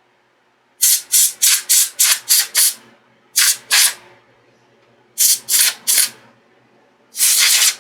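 Hand trigger spray bottle squirting in quick pumps: a run of seven short sprays, then two, then three, and one longer spray near the end.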